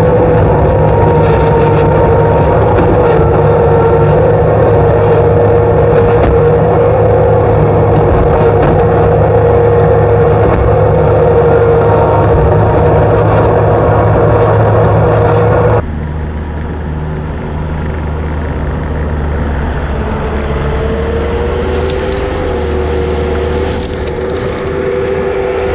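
Skid steer engine running hard with a steady whine. The sound drops abruptly in level about sixteen seconds in, then runs on quieter, rising slightly in pitch a few seconds later.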